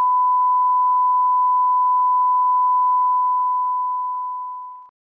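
Steady television test tone, the single-pitch 1 kHz reference tone played under colour bars. It fades out and stops shortly before the end.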